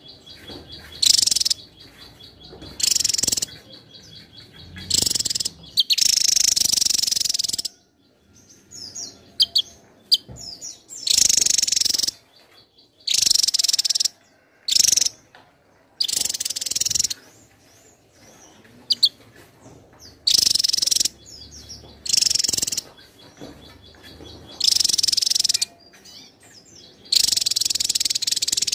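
Javan tesia singing: about a dozen loud bursts of high notes, each a second or two long, with short pauses between. A faint, steady high pulsing trill runs in the gaps.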